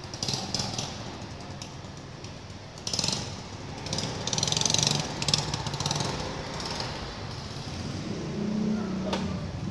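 Small motor scooter engine running at low speed while the scooter is manoeuvred, with a steady low rumble and several bursts of high hissing noise.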